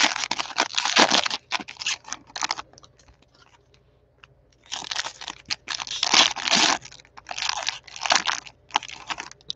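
Plastic trading-card pack wrappers crinkling and tearing as packs are opened and handled by hand, in two bouts with a near-quiet pause of about two seconds between them.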